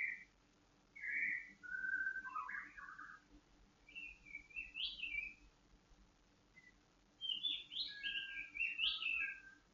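White-rumped shama singing: a run of short, clear whistled phrases with brief pauses between them, the last and busiest phrase coming about two-thirds of the way in.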